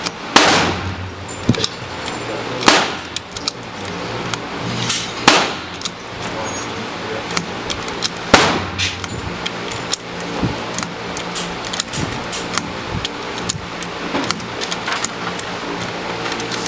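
Firearm gunshots: four loud shots spaced about two and a half to three seconds apart, with many fainter sharp cracks between and after them.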